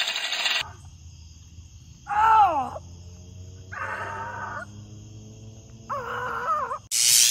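Three drawn-out, wavering vocal cries, the first sliding down in pitch, over a steady low hum and a faint high ringing. A loud crash-like burst cuts in near the end, and the tail of another such burst fades out in the first half-second.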